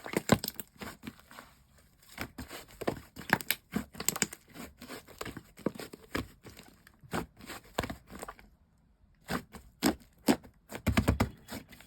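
Slime being squeezed and pressed by hand: a fast, irregular run of short pops, clicks and crackles, with a brief lull a little past two thirds of the way through.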